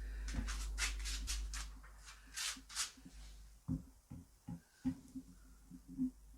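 Short bursts of rustling handling noise over a low steady hum in the first few seconds, then a few faint soft knocks.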